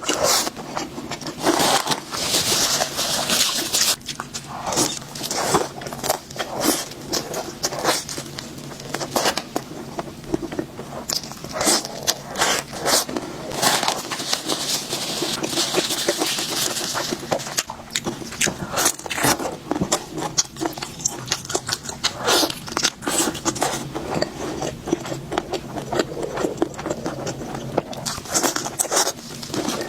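Close-miked eating sounds: biting, crunching and chewing crispy grilled meat, with many irregular crackly clicks.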